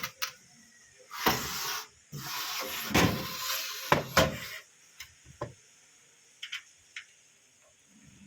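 Sheet-metal side panel of a desktop computer case being slid shut, with two stretches of metal scraping followed by several sharp clicks and knocks as it seats.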